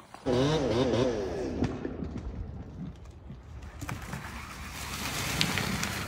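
Chainsaw revving up and down, high in a tall pine, as the tree's top is cut through. It is followed from about four seconds in by a rising rush of noise as the cut top tips off and falls.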